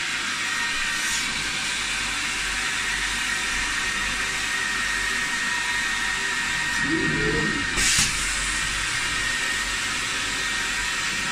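Hot-water carpet extraction wand being worked across a carpet: the extraction machine's vacuum runs steadily with a high whine, and air and spray hiss through the wand head. A brief knock sounds about eight seconds in.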